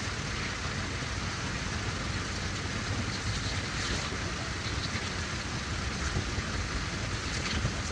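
Oldsmobile 307 V8 idling steadily with the radiator cap off, left running to bleed air out of the cooling system.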